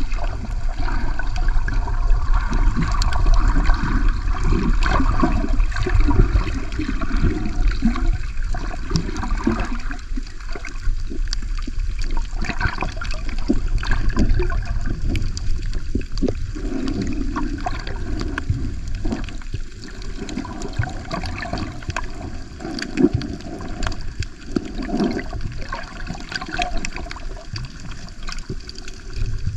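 Water sloshing and gurgling on a camera's microphone held underwater, muffled and low, with scattered short clicks.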